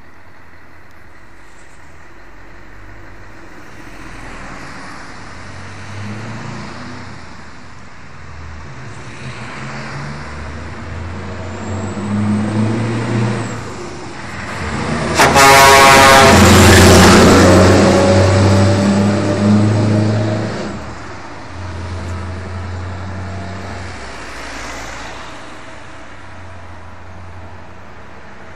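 Scania R500 V8 diesel truck pulling away and approaching, its engine note rising and dropping several times as it works through the gears. About halfway through, a short truck horn blast sounds as it reaches the camera. The engine is loudest as it passes, then fades away.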